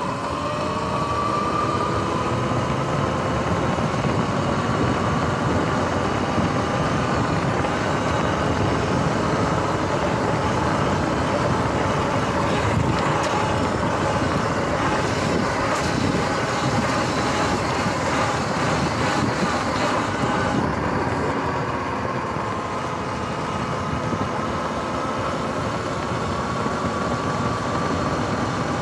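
Sur-Ron X electric dirt bike under way: the motor's whine rises in pitch as it speeds up in the first two seconds, dips around twenty seconds in and climbs again near the end, over steady tyre and wind noise.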